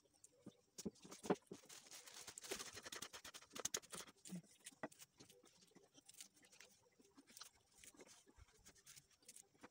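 Fingers picking larvae out of the cells of a papery nest comb into a plastic bowl: faint small crackles and ticks, with a longer rustling scrape about two seconds in.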